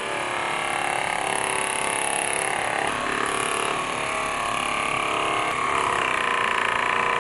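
TIMTAM Power Massager Pro percussion massage gun running at its top speed, 2800 percussions a minute, with the ball tip pressed against a forearm: a steady motor buzz whose pitch wavers slightly.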